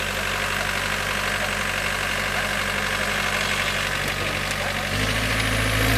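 Off-road vehicle's engine idling steadily, getting louder about five seconds in.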